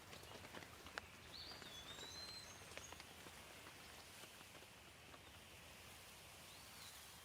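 Faint rain ambience: a soft, even hiss with scattered drips, and a bird giving short whistled notes about a second and a half in and again near the end.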